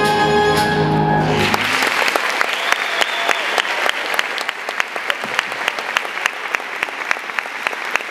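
Music ends on a held final chord about a second and a half in, and an audience breaks into applause, with many sharp individual claps standing out.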